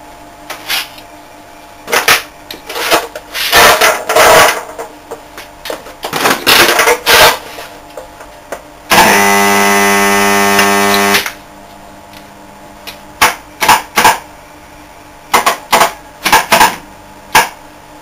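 High-voltage electrical arcing from a microwave-oven-transformer rig: a run of loud, irregular zaps, and about nine seconds in one steady buzz lasting about two seconds.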